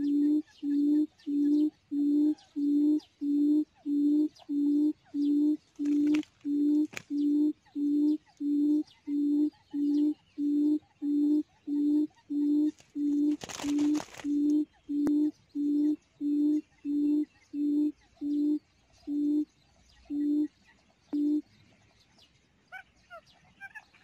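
Quail call played from a speaker as a trapping lure: a low hooting note repeated about twice a second, spacing out and stopping about three seconds before the end. A brief rustle about halfway through, and faint chirps once the hooting stops.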